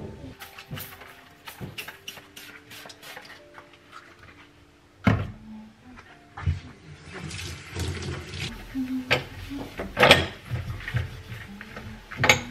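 Clicks and knocks of a plastic spray bottle and metal stove grates being set down and handled on a kitchen counter, with a few short whines in between. The loudest knocks come about five seconds in, about ten seconds in, and just before the end.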